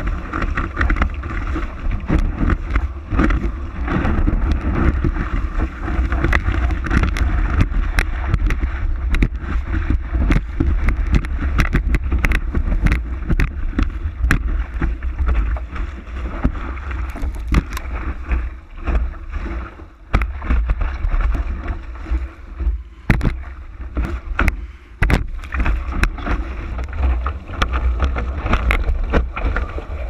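Wind buffeting the microphone of a camera mounted on a surfboard, with water rushing and splashing under and around the board as a kiteboarder rides a wave. Spray and chop make many sharp ticks and splashes over a constant low rumble, with brief lulls about two-thirds of the way through.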